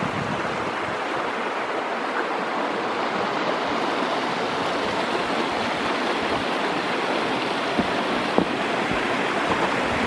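Small snowmelt creek running between snowbanks: a steady rush of flowing water, with two brief sharp knocks about eight seconds in.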